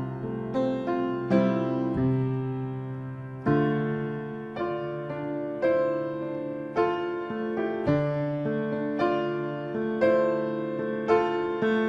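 Grand piano played solo: slow chords struck about once a second, each left to ring and fade, with one longer held chord about two seconds in.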